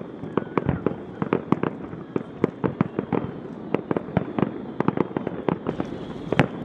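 Fireworks display: a rapid, irregular barrage of sharp bangs and cracks, several each second, over a continuous crackling haze.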